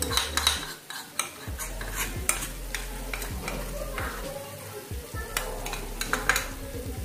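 A spoon scraping poppy seed paste out of a plastic bowl into a frying pan, with repeated sharp clicks and taps of the spoon against the bowl, over a light sizzle of mustard flowers and brinjal cooking on a low flame.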